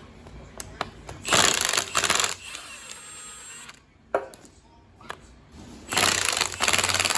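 A power tool running in two bursts of about a second each with a fast rattle, working the bolts to take the cylinder head off a small-block Chevy 350. Sharp metal clicks come between the bursts.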